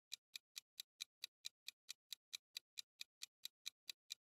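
Clock-tick sound effect: light, evenly spaced ticks, about four or five a second, counting down the time to answer.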